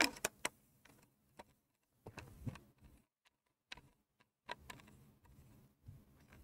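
Sparse, irregular keystrokes and clicks on a computer keyboard, a few light taps at a time with quiet gaps between; the loudest cluster comes right at the start.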